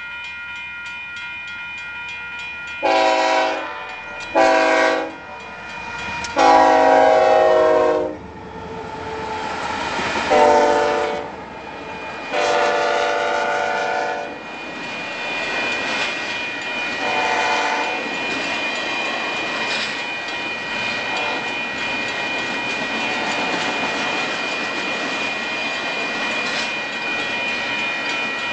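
Union Pacific diesel locomotives sounding their air horn in six blasts, the third and fifth long, as the train approaches. Then the locomotives and double-stack container cars roll past with steady wheel-on-rail noise and clacking.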